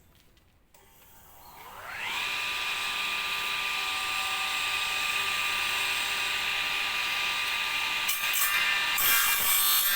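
The electric circular saw mounted in a homemade table saw is switched on: its motor winds up to speed with a rising whine over about a second, then runs steadily at a high pitch. Near the end, rougher, uneven noise joins the whine.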